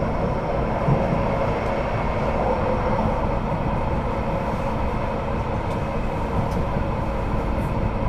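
Duewag/Kiepe B80D Stadtbahn light-rail car running between stops, heard from inside: a steady rumble of wheels on rail with a faint steady hum.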